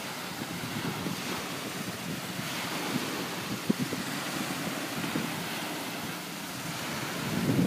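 Small waves breaking and washing up on a sandy beach, a steady wash with a swell about two seconds in, with wind buffeting the microphone in a few short low thumps.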